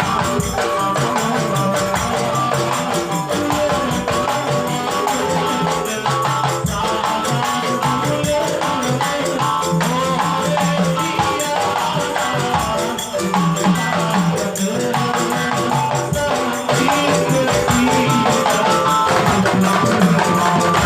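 Music with steady percussion and held melodic notes, a little louder for the last few seconds.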